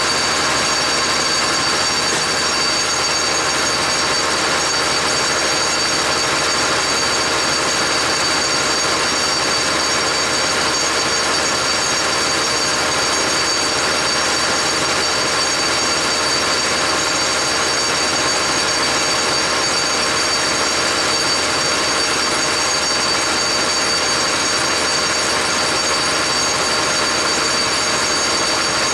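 Bacharach injection pump test stand running steadily, driving a Bosch VE rotary injection pump for a 12-valve Cummins as it fires fuel through 7x.011 sac injectors into the measuring glasses, with a steady high whine over the machine's running.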